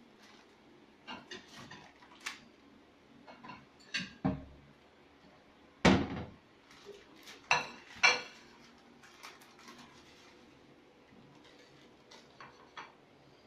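Wooden kitchen cupboard doors opening and shutting and dishes knocking together as a plate is taken out of the cupboard. It comes as a string of separate knocks and clatters, the loudest about six seconds in.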